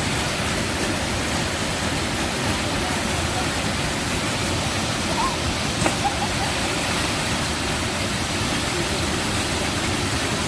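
Waterfall rushing with a steady, even roar of falling water. There is a brief sharp knock about six seconds in, and faint distant voices come and go around the middle.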